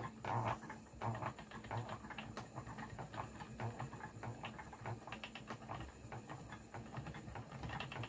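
Wooden spinning wheel treadled steadily while plying yarn: a rhythmic light knocking with fine clicking from the turning wheel and flyer.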